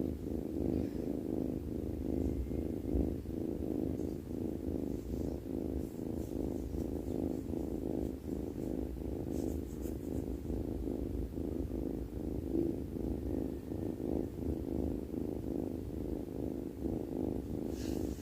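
A sleeping cat's steady, low, pulsing rumble, which the uploader calls snoring.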